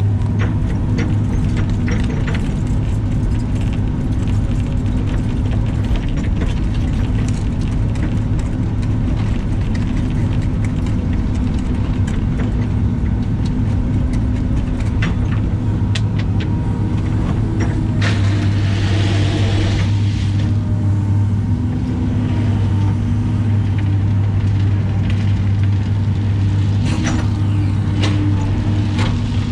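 Caterpillar excavator's diesel engine running steadily, heard from inside the cab, as the bucket scoops, dumps and spreads driveway gravel. The rock clatters in many small clicks, with a longer rush of sliding gravel about eighteen seconds in.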